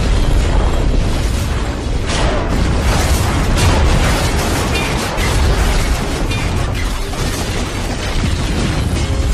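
A dense, loud run of explosions with a heavy low end, and sharper blasts standing out about two, three and a half and five seconds in.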